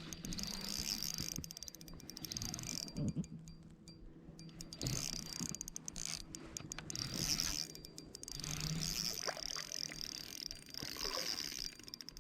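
Fishing reel ticking and whirring in stretches of several seconds while a hooked fish is fought.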